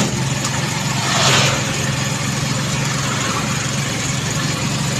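Engine of a moving vehicle running steadily, with road and wind noise. A brief louder rush of noise comes about a second in.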